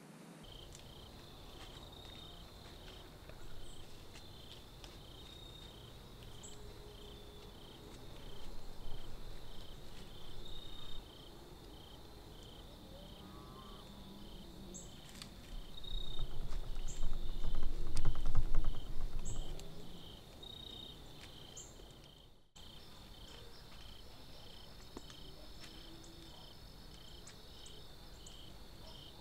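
Crickets chirping in a steady rhythm, about two chirps a second. Twice, a louder low rumbling noise rises over them, the second and louder one coming about halfway through.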